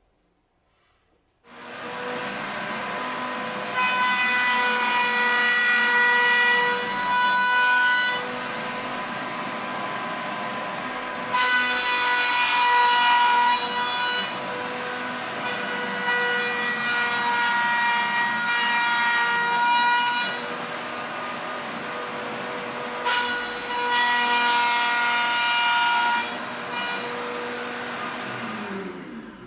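Router in a router table, switched on about a second and a half in, running at a steady high pitch. It grows louder and harsher four times as solid wood is fed through the bit to cut a notch. It is switched off near the end and winds down in pitch.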